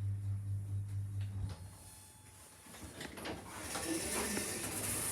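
Passenger lift's steady low drive hum cuts off about a second and a half in as the car stops. A few seconds later clicks and a rising mechanical whoosh follow as the lift doors slide.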